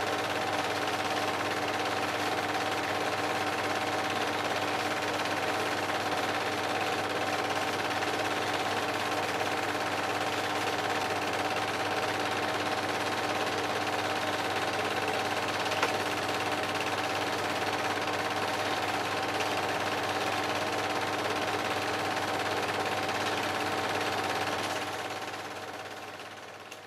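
Film projector running: a steady rapid mechanical clatter with a constant motor hum, fading away near the end.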